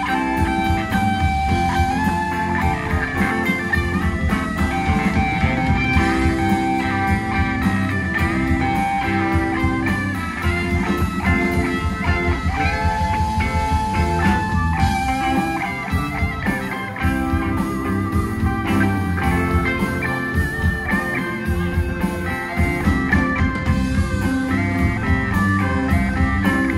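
A band playing blues-flavoured rock, with an electric guitar taking the lead in held, bending and wavering notes over a steady beat.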